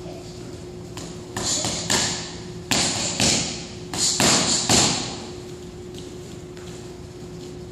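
Boxing gloves smacking into focus mitts in fast punch combinations: three quick bursts of three or four strikes each, in the middle of the stretch, each smack ringing briefly in the room.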